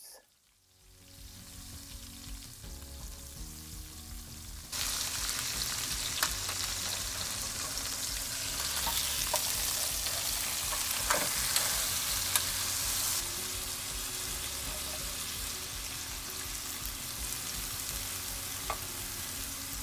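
Beef short ribs and honey glaze sizzling in a hot oven tin as the glaze is brushed on and the meat is turned. The sizzle grows suddenly louder about five seconds in, with a few sharp clicks around the middle.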